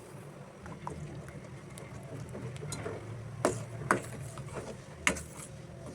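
A few sharp knocks and clicks over a steady low hum, the loudest about three and a half, four and five seconds in.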